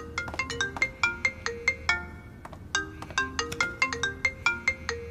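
Mobile phone ringing: a ringtone melody of quick, short, bright notes that repeats over and over.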